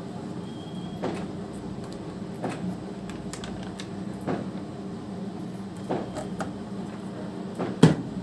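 Light clicks and crinkles of a plastic ready-meal tray's film lid being peeled back and handled, with one sharp knock near the end. A steady low hum runs underneath.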